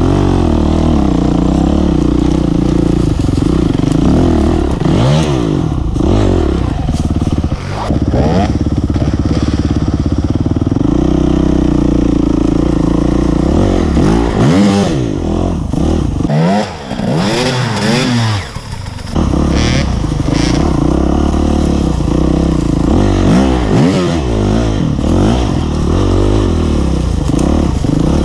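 Single-cylinder four-stroke engine of a 2009 Honda CRF250X enduro bike being ridden, the revs rising and falling with the throttle, dropping back briefly about two-thirds of the way through.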